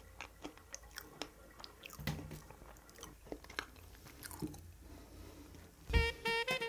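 Close-miked chewing of strawberry cake: scattered soft, wet clicks and smacks of a mouth eating. Music comes in about six seconds in.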